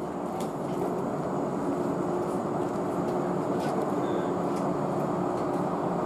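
Steady hum and whirr of a stopped 413/455-series electric train's onboard equipment, with a faint steady tone through it. A few faint clicks are scattered over the top.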